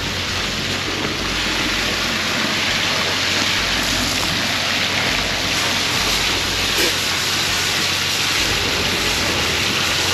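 High-pressure sewer-jetter nozzle in a culvert skid spraying water jets backward across rocks and into the water: a steady rushing spray, with a steady low hum underneath.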